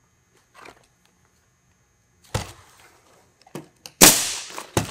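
A few light knocks of handling, then about four seconds in a pneumatic coil roofing nailer fires: a sharp, loud shot with a short hiss of exhaust air, driving a nail through the flashing shingle. Another sharp knock follows just before the end.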